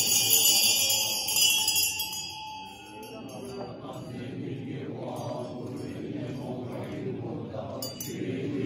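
Tibetan ritual hand bell ringing and fading away over about the first three seconds, then low voices for the rest.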